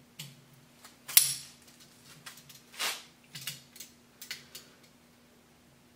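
Lacing pliers and galvanized steel lacing wire clicking and clinking as the wire is twisted tight. There is a sharp metallic click about a second in, the loudest, another near the three-second mark, and a few lighter ticks after.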